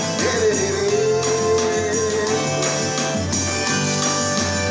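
Live forró band playing, with a long wavering held note for the first couple of seconds over a steady beat and jingling percussion.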